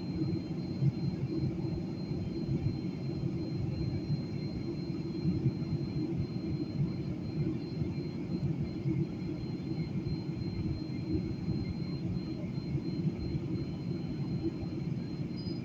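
Steady engine and airflow rumble inside an airliner cabin on a landing approach, with a thin, steady high whine above it.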